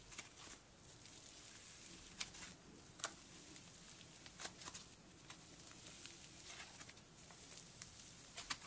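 Thick cloud slime, made with expanding snow, being stretched and pulled apart by hand: faint, irregular little crackles and pops as the fluffy slime tears and folds.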